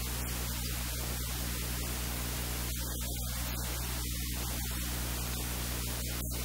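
Steady static hiss with a low electrical hum underneath, unchanging throughout.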